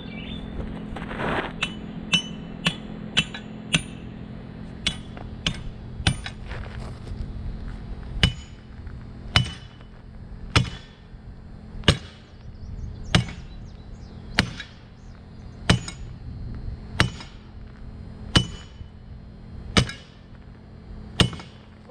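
Hammer driving a spike to fasten a switch stand, metal striking metal with a clinking ring. First a run of lighter taps about two a second, then eleven heavier, evenly paced blows just over a second apart.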